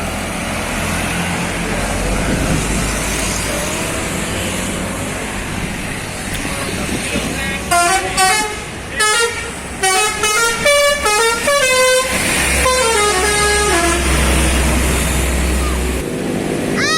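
Telolet (basuri) musical air horn on a tour bus playing a quick melody of short stepped notes about eight seconds in, ending in a falling run. The bus's engine rumbles underneath and swells afterwards, and another horn note slides up in pitch near the end.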